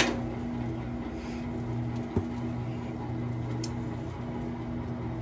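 Electric rotisserie drive of a Beast rotisserie smoker running steadily, turning the racks with a low even hum. A single light click about two seconds in.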